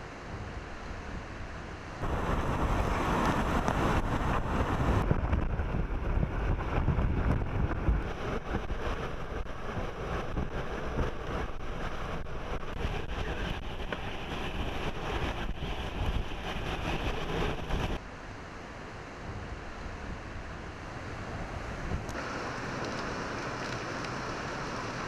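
Hurricane wind and heavy rain, a steady rushing noise with wind buffeting the microphone. Its level changes abruptly several times, louder from about two seconds in and quieter again from about eighteen seconds.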